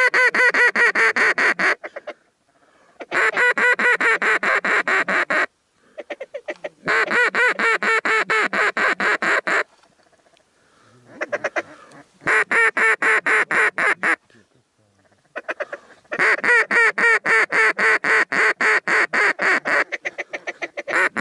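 Duck quacking: fast, even runs of loud quacks, about eight a second, coming in about five bursts of two to four seconds separated by short pauses.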